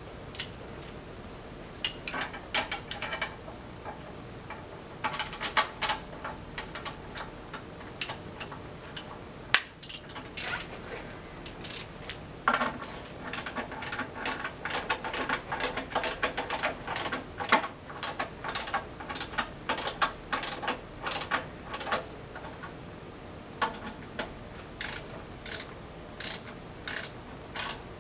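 Hand ratchet wrench clicking in repeated quick runs, broken by short pauses, as bolts are run in to fasten a transmission to the flywheel housing.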